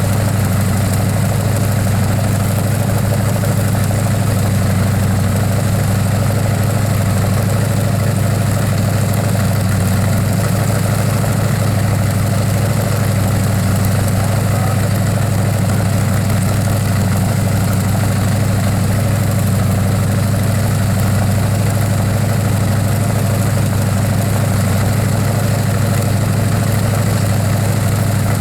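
Engine idling steadily: an even, deep drone with no revving or changes.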